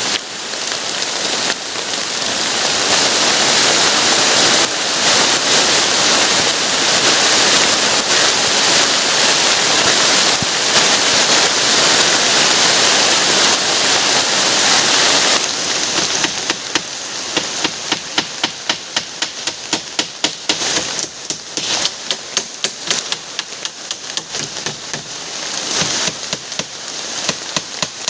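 Heavy rain falling in forest, a dense steady hiss. About halfway through the hiss thins and many sharp taps come through, several a second, like large drops striking a surface.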